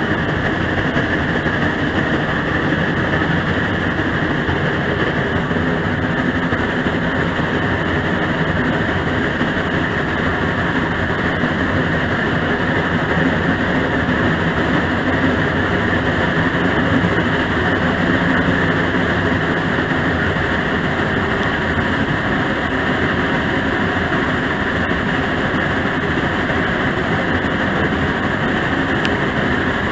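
Geared steam locomotive and its train running steadily, heard from aboard: a continuous din of engine working and the rumble of the cars on the track.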